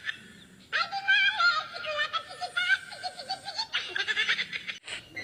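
A person giggling and laughing in rapid pulsing bursts, starting just under a second in, with a second burst near the end that cuts off suddenly.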